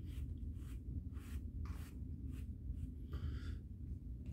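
A bristle beard brush stroked repeatedly down through a long, full beard, about seven short brushing swishes with a slightly longer one near the end.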